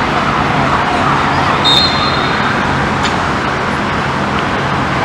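Steady, loud outdoor background noise, like distant traffic, with one short, high whistle blast about two seconds in.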